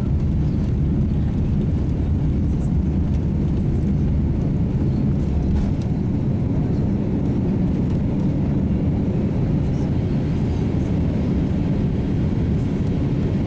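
Boeing 787 jet engines at takeoff power, heard from inside the cabin: a steady, loud rumble through the takeoff roll and liftoff.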